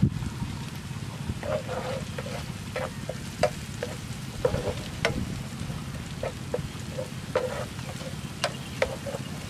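Chopped chilli and garlic frying in oil in a frying pan while a spatula stirs, scraping and tapping against the pan many times, over a steady low rumble.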